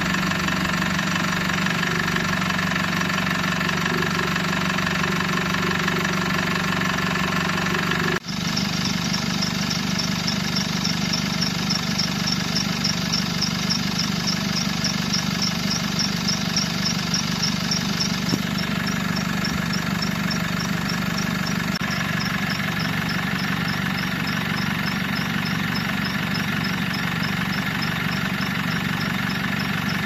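Mercedes-Benz B-Class four-cylinder CDI diesel engines idling steadily, recorded under the open bonnet: one engine, then after a short break about 8 s in a second one, which carries a fast, even high-pitched ticking over its running.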